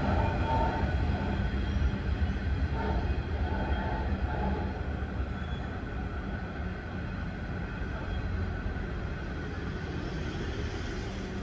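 Freight train of hopper wagons rolling away over the rails: a steady low rumble of wheels on track that slowly fades as the last wagons recede.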